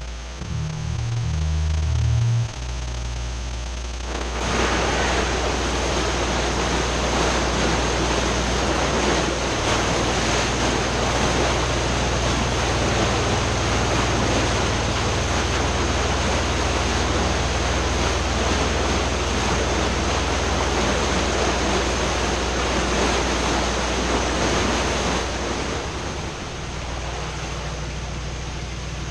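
Canal lock filling: water gushing in through the upper gate and churning loudly in the narrow brick chamber in front of a narrowboat's bow. The rush comes in strongly about four seconds in and eases a little near the end, with a low steady engine hum beneath.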